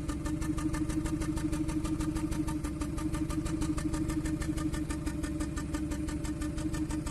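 Kia Cerato four-cylinder engine idling with an even, rapid exhaust pulse while its fourth injector is shut off by a scan tool's actuation test. The idle carries the stumbling puffs of a misfire that is traced to cylinder one.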